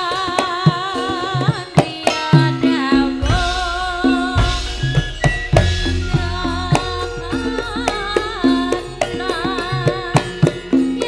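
Live Javanese dance-band music: kendang hand drums play a busy dance rhythm under a female singer's wavering, ornamented melody. Deep bass notes swell in from about three seconds in.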